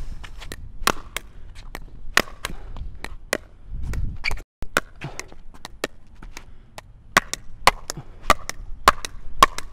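Pickleball paddle hitting a plastic pickleball in a fast wall rally: a string of sharp pops from paddle strikes and the ball rebounding off the wall and the hard court, coming quicker near the end. A brief low rumble about four seconds in.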